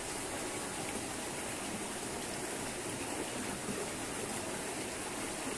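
Shallow rocky stream running over stones, a steady even rush of water.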